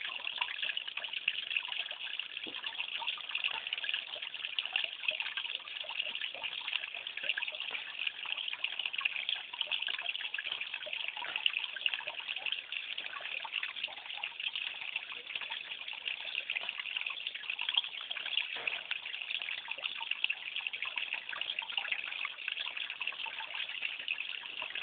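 Running water trickling and splashing steadily into the pond, an even rushing with small irregular splashes throughout.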